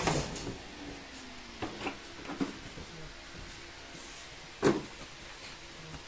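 Hollow plastic knocks and clicks from a Numatic WVD900 wet-and-dry vacuum being handled with its tank open and its cloth filter lifted out. A few small clicks come at about one and a half to two and a half seconds, and a single loud knock comes just under five seconds in.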